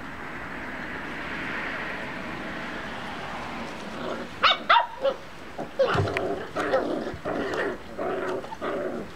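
Bernese mountain dog puppies play-fighting feistily. A few sharp, high yips come about halfway through, followed by a run of short growly barks over the last three seconds.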